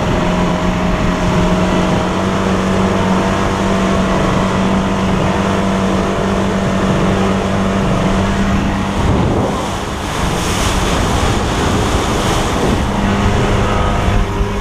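Motorboat running at speed: a steady engine hum under the rush of water and spray off the hull, with wind buffeting the microphone. The engine hum fades about nine seconds in and comes back near the end.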